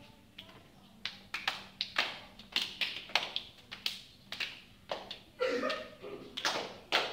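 A group of children beating out a rhythm with hand claps, sharp hits at roughly two a second starting about a second in and ringing in the hall. A short voice call sounds a little past the middle.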